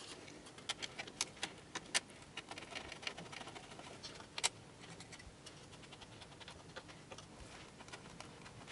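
Faint, irregular clicks and light scraping as the Antec Kühler H2O 920 cooler's pump block mounting screws are turned by hand onto the backplate bolts, with a few sharper clicks in the first two seconds and one near the middle.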